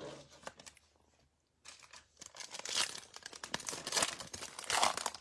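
Foil trading-card pack being torn open by hand, the wrapper crinkling and tearing. It is mostly quiet at first and starts about a second and a half in, getting busier toward the end.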